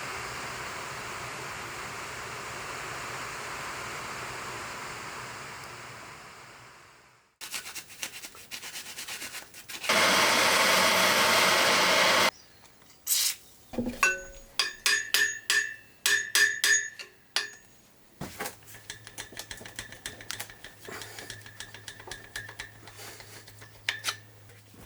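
Hand work on the old turbine's metal parts. A steady hiss fades out, then after scattered clicks a loud burst of hissing noise lasts about two seconds. A run of sharp hammer-like strikes on metal follows, each one ringing, and then ongoing scraping and rubbing over a low hum.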